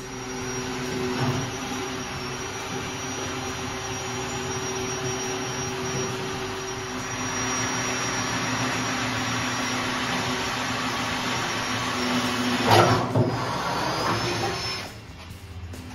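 An electric motor running steadily with a thin high whine. There are a few sharp knocks about thirteen seconds in, and it stops near the end.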